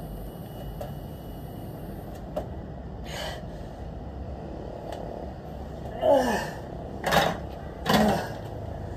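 A man's forceful breaths and grunts of effort while lifting dumbbells: a soft exhale about three seconds in, then three louder grunts with falling pitch about a second apart near the end, over a steady low background hum.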